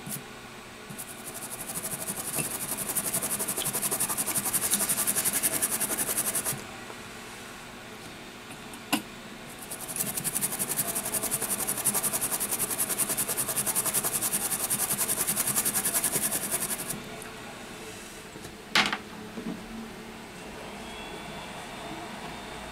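Toothbrush scrubbing a phone logic board to clean off solder flux: two spells of fast, even brushing strokes several seconds each, with a sharp click between them and another near the end.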